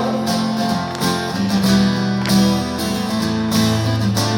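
Live band music: guitars strumming the song's chords in a short instrumental gap between sung lines.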